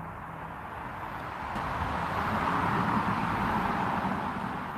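A distant vehicle passing: a rushing noise that swells over a couple of seconds and then fades away.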